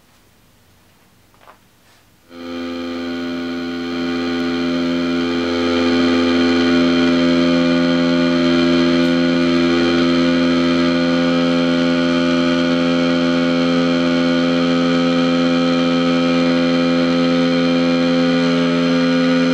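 Distorted noise drone from a Squier Telecaster run through a handmade effects pedal into a Vox amp. After faint amp hum and a small click, it comes in suddenly about two seconds in as a dense stack of steady held tones, then swells louder over the next few seconds and holds.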